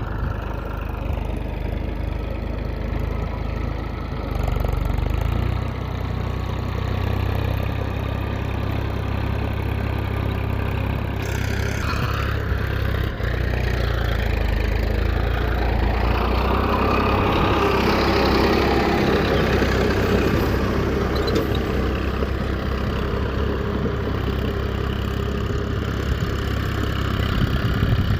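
A small motor or engine running steadily, its sound growing fuller and noisier about halfway through.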